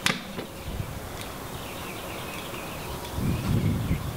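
Open range ambience: a steady background hiss with a single sharp click right at the start and a low rumble between about three and four seconds in.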